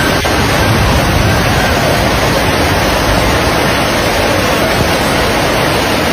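Fast-flowing floodwater rushing in a loud, steady roar of noise.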